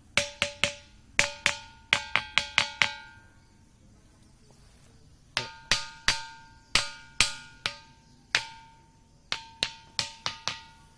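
A ringing rock, struck again and again with a small hand-held stone, gives sharp, metal-like clanging notes that ring on briefly after each blow. There are two quick runs of strikes with a pause of about two seconds between them, and the pitch changes with the spot struck: the first run has a lower note that is missing in the second.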